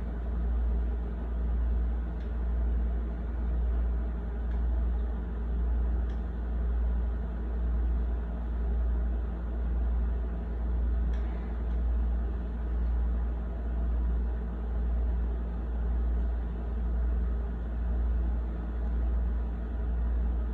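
A steady low hum that swells and fades about once a second, with a few faint clicks.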